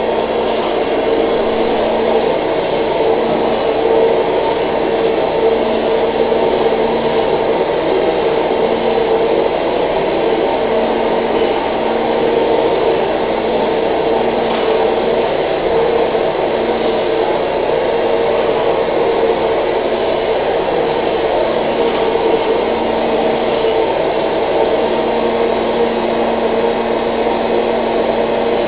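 Vacuum cleaner running steadily: a loud, even whooshing noise with a steady motor hum.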